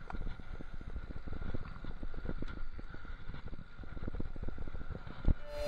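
Mountain bike rolling over a rough dirt trail: a dense, irregular rattle of tyres, chain and frame over the bumps, with a sharper knock near the end.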